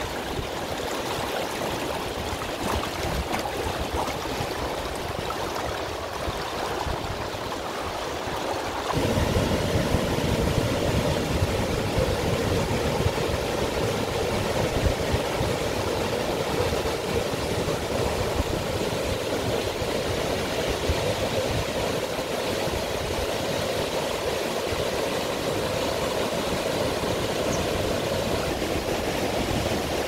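Shallow mountain stream flowing over rocks and pebbles, a steady rush of water. About nine seconds in it becomes louder and deeper.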